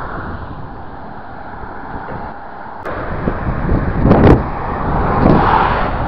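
Road traffic: cars passing on a highway, the noise growing louder in the second half.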